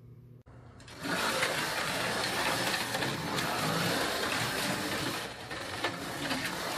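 HO-scale AFX slot cars running laps on the track, their small electric motors and pickups whirring loudly, starting about a second in.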